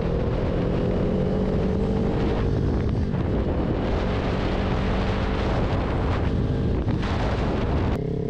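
Kawasaki Ninja 400 parallel-twin engine running steadily at cruise through a Two Brothers aftermarket exhaust, its pitch easing slightly down, with wind noise on the microphone.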